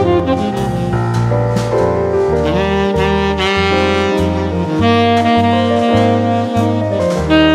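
Jazzy background music with a saxophone-like lead melody over a walking bass line and light drums.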